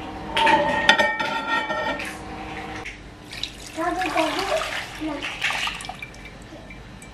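Handling at a microwave oven as a cup is lifted out, with a clatter and a short held ringing tone. After that, warm milk pours in a stream into a glass bowl.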